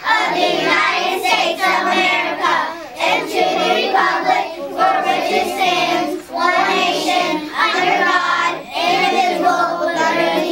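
A group of kindergarten children singing a song together, in phrases broken by short breaths.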